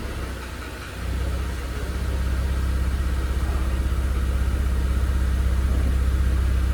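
Porsche Cayenne's 3.6-litre twin-turbo V6 idling just after a start, running on freshly changed oil with an additive, with a steady note and a fast even pulse. About a second in the engine note steps up and settles.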